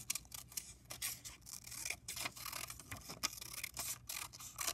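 Scissors cutting through a paper strip, a quick, uneven run of short crisp snips with paper rustling.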